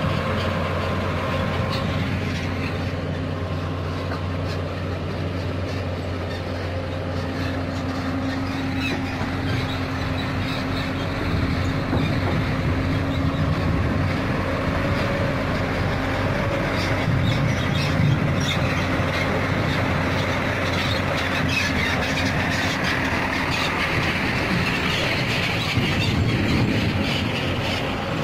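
Hyundai 220 hydraulic excavator's diesel engine running steadily while it digs and swings earth, getting louder and busier about halfway through as the loaded bucket is raised and swung over a dump truck, with clatter of soil and stones.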